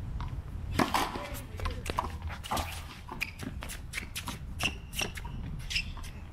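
Racquetball rally: the rubber ball popping off racquet strings and slapping against the concrete wall and floor in a string of sharp hits, the loudest about a second in, with shoes scuffing and squeaking on the concrete court.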